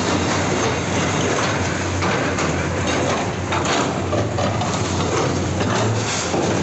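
Komatsu PC210 hydraulic excavators' diesel engines running steadily while a bucket breaks into a brick house, with the irregular crunch and clatter of breaking masonry and falling rubble.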